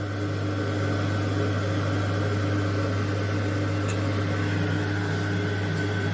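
Steady hum of an electric fan motor, a constant low drone with a faint whine above it.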